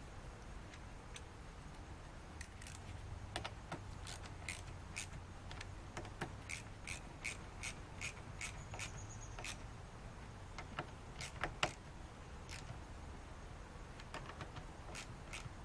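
Light metallic clicks and taps from a hand wrench and the terminal hardware as the new battery terminal bolts are tightened down, a quick run of them, about two or three a second, through the middle.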